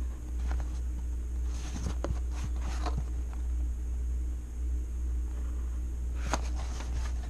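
Clear plastic ruler being shifted and set down on tracing paper and a pencil drawing along it, a cluster of small clicks and scrapes about two seconds in and another near the end, over a steady low hum.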